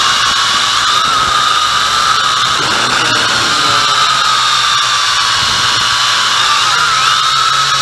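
MJX X101 quadcopter's electric motors and propellers whining loudly, heard close up from a camera on the drone itself. The whine holds steady but its pitch wavers, dipping and rising as the throttle changes in flight.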